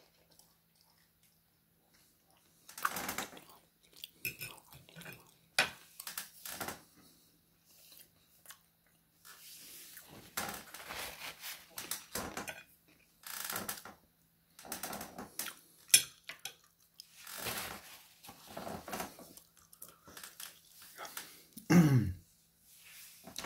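Close-up eating sounds: chewing and mouth noises, mixed with a metal fork clicking and scraping on a glazed ceramic plate, after a nearly silent first few seconds. Near the end comes a short, loud, low sound that falls in pitch.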